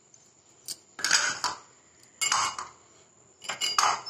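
A small plastic bowl knocks against a plastic mixing bowl three times, about a second apart, as chopped green chillies are tipped out of it into the mixture.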